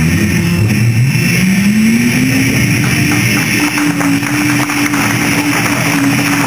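Voices amplified through microphones imitating an engine revving: a buzzing tone slides up over about two seconds, then holds high and steady.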